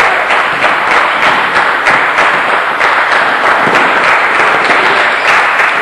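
Crowd applauding, a steady dense patter of many hands clapping.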